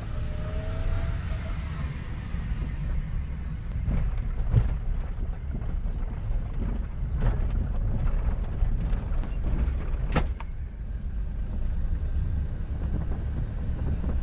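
Small Suzuki hatchback driving on a rough rural road, heard from inside the cabin: a steady low engine and road rumble, with a few sharp knocks as the car goes over bumps.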